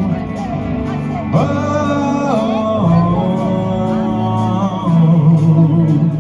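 Live rock band playing between sung lines: a sliding melodic lead over steady bass notes, with evenly repeating cymbal strokes from the drum kit.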